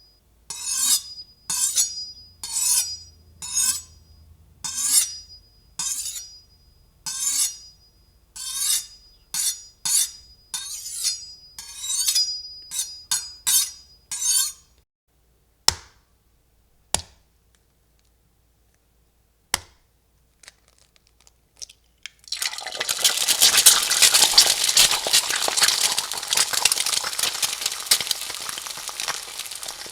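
Glassware clinking over and over, about one or two clinks a second, each with a short ringing tone. After a few scattered clicks, food starts frying about three-quarters of the way in, a steady dense sizzle.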